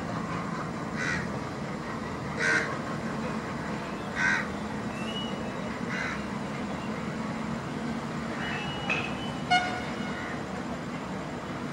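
Low, steady rumble of the receding self-propelled inspection car's under-slung diesel-electric power pack. Over it a bird calls repeatedly, about every one and a half seconds, with a few sharper calls near the end.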